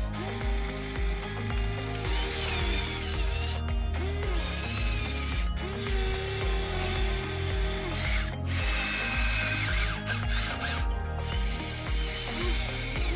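Geared electric motors of a Huina 1/14 RC excavator whining and grinding as its functions start and stop, each run of whine rising as it starts and falling as it stops.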